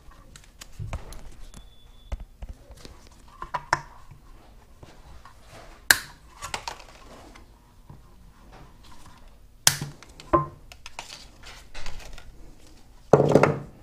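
Diagonal cutters snipping the tails off nylon zip ties: two sharp snaps a few seconds apart, with light clicks and rustling of handling in between. A louder clatter comes near the end.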